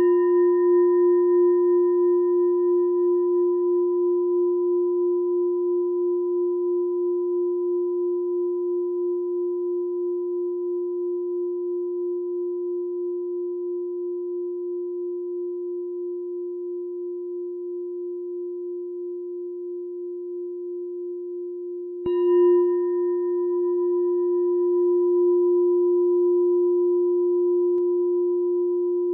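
A meditation bell rings on with a steady low tone and a slow pulsing waver, fading gradually. It is struck again about 22 seconds in, with a bright attack, and rings on.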